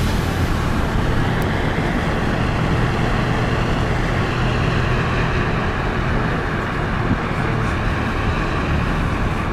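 Steady road noise inside a moving car: a continuous low rumble of tyres and engine with rushing air.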